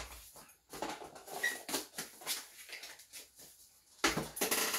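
Cardboard packaging being handled on a desk: light taps and rustles as a small product box is set down, a brief squeak about one and a half seconds in, then louder rustling of cardboard near the end as another box is reached into.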